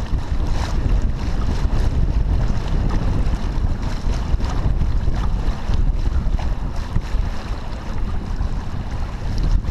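Wind buffeting the microphone with a loud, steady rumble, over water rushing and splashing along the hull of a T-10 sailboat heeled and sailing upwind.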